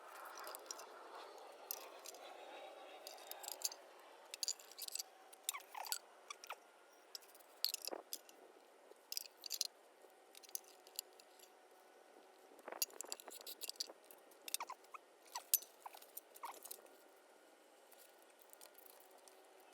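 Faint, irregular clicking and scraping of small hard objects being handled, with a few sharper clicks around the middle and in the second half.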